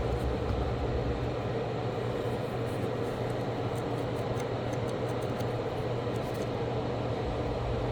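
Steady machine hum with an even airy hiss, like a bench fan or blower running, with faint light clicks over the first six seconds.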